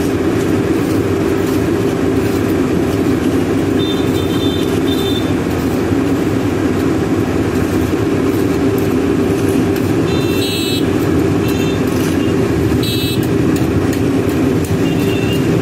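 Manitou TLB 844S backhoe loader's diesel engine running steadily close by, with a few brief horn toots from passing traffic.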